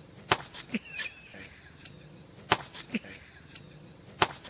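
A series of sharp, separate cracks, about six of them at uneven intervals, the loudest near the start and about halfway through.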